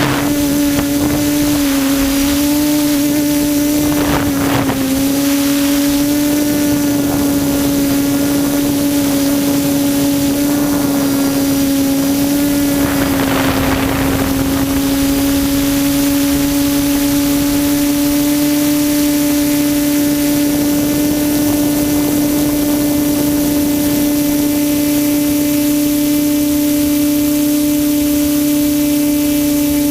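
QAV400 quadcopter's motors and propellers buzzing steadily in flight, heard from the camera mounted on the craft. The pitch dips slightly a couple of times in the first few seconds, then holds steady.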